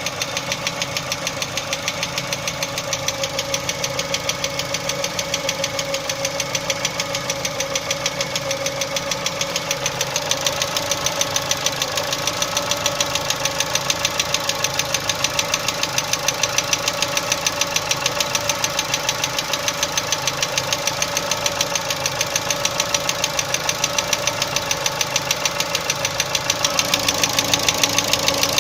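Chevrolet Cruze 1.6 petrol engine running with a rapid, even knock that keeps time with the engine, the knock the owner is recording as a fault. It gets slightly louder about ten seconds in and again near the end.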